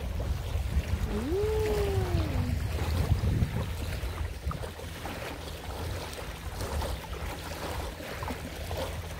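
Wind rumbling on the microphone at the edge of a choppy lake, with the faint wash of small waves. About a second in, one short call rises and then falls in pitch.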